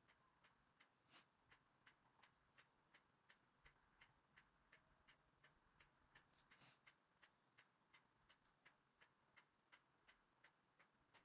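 Faint clock ticking, even and about three ticks a second, with a short hiss about six and a half seconds in.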